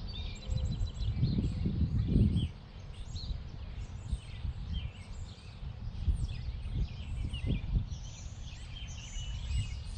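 Songbirds chirping and calling in many short notes throughout, over wind rumbling on the microphone, with a strong gust about a second in.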